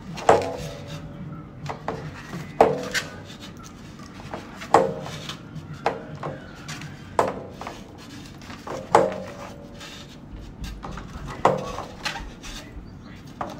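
Eggs being set one at a time into a clear plastic egg tray on a glass table: a hard clack with a short ringing tail about every two seconds.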